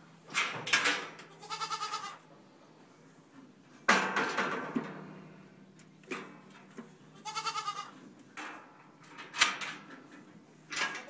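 A goat bleats twice with a quavering call while the steel gates and bars of a Goat Grabber handling chute clank and rattle as they are worked. The loudest clang, about four seconds in, rings on for a second or two.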